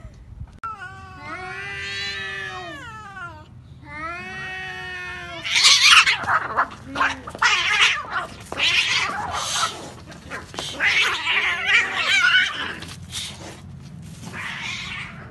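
Two domestic cats, a longhaired cream cat and a spotted tabby, fighting. First come two long, drawn-out yowls that rise and fall in pitch. Then, from about five seconds in, a loud scuffle of screeching and hissing as they grapple, which dies down near the end.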